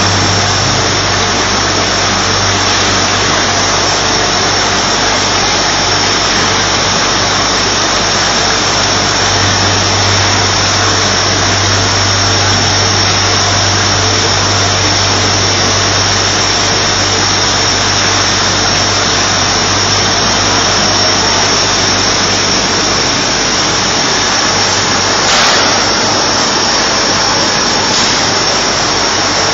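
CMT FC2R 1000 mozzarella machine running: a steady mechanical noise with a constant high-pitched whine over a low hum.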